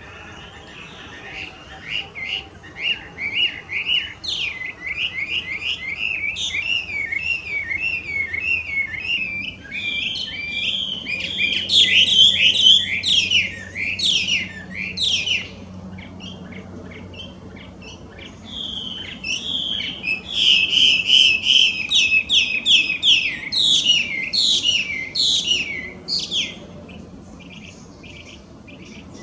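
Chinese hwamei (Garrulax canorus) singing loudly: long, fast runs of varied whistled and slurred phrases, in two bouts with a lull of a few seconds between them.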